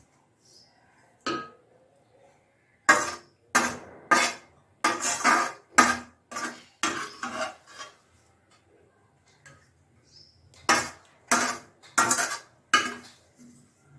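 Metal spoon scraping and knocking against the inside of a steel pan as vegetable curry is scooped out, in runs of quick strokes with pauses between: one knock, then two longer runs, one in the middle and one near the end.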